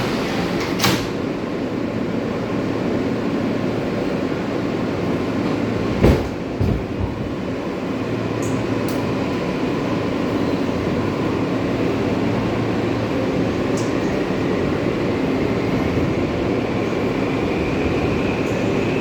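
R143 subway car with a steady rumble, a loud thump about six seconds in, then the traction motors' whine rising slowly in pitch as the train gathers speed.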